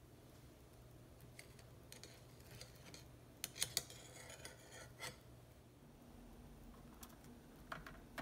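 A few light metallic clicks and taps from a metal spatula and cookies against a wire cooling rack, with a sharper pair of clicks about three and a half seconds in.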